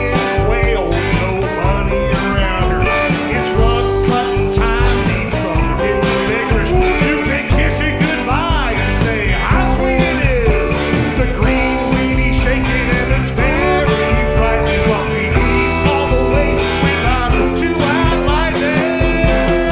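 Live band playing a rock song, with a man singing lead over electric guitars, keyboard and a drum kit.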